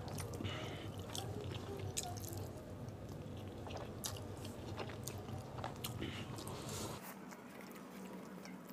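Close-up chewing of a mouthful of chicken biryani eaten by hand, with many short wet mouth clicks. A low background hum stops about seven seconds in.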